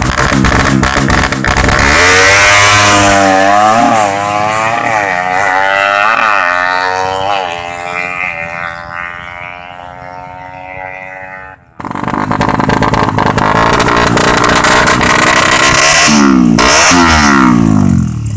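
Drag bike with a ported Suzuki Satria FU engine accelerating hard from a standing start, its pitch climbing and dropping back with each upshift as it fades into the distance. After a sudden cut, a motorcycle engine runs loud and close, with quick rev swings up and down near the end.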